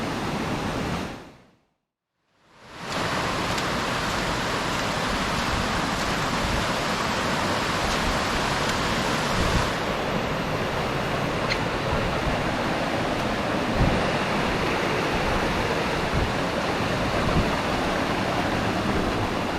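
Steady rushing of a waterfall close by, with occasional faint low thumps of wind on the microphone. The sound fades out to silence for about a second near the start, then comes back.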